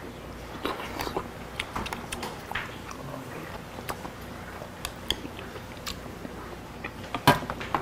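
A man chewing and biting mouthfuls of raw beef close to the microphone: wet mouth smacks and many small clicks. A sharper click comes near the end.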